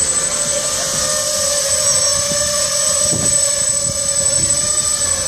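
250-size racing quadcopter hovering close by, its brushless motors and propellers making a steady buzzing whine that wavers slightly in pitch.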